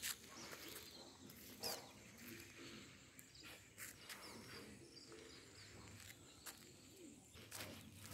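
Faint outdoor ambience with birds calling, including low cooing typical of a dove, and a few soft knocks like footsteps on grass.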